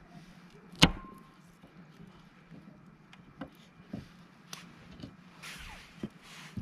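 A loud, sharp clack about a second in with a brief ringing tone, followed by scattered lighter clicks and knocks and a short hiss near the end.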